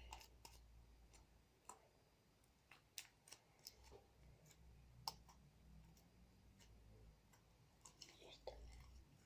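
Near silence, with a few faint, scattered clicks from handling.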